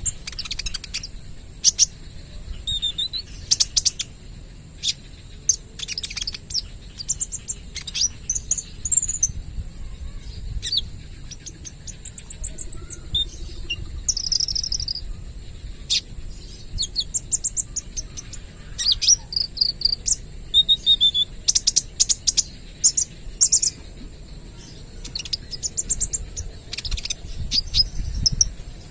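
Juvenile kolibri ninja sunbird singing: quick high-pitched chirps broken by short rapid trilled bursts, the 'tembakan' phrases, repeated throughout with brief pauses. A steady high insect-like hiss runs underneath.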